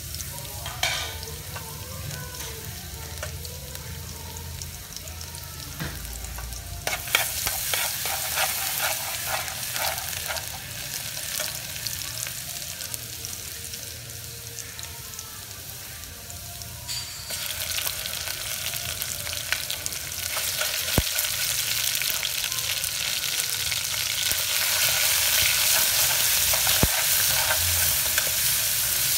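Minced garlic sizzling in hot oil in an aluminium pot. The sizzle steps up about a quarter of the way in, then grows much louder from just past halfway, once minced meat is in the pot and being stirred with a spatula. There are a few sharp clicks near the end.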